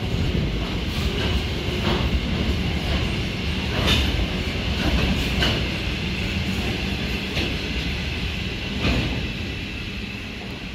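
Freight train's covered hopper wagons rolling past: a steady rumble with a faint high ringing, broken by sharp wheel clacks every second or two, dying away near the end as the last wagon goes by.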